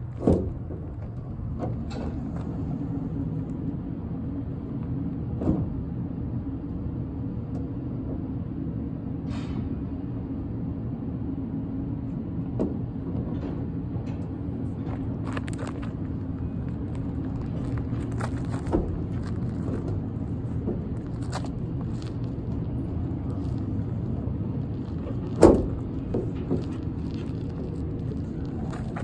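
A motor vehicle's engine idling steadily, a low even rumble, with scattered knocks and clicks from work at the truck's rear; the sharpest knock comes about 25 seconds in.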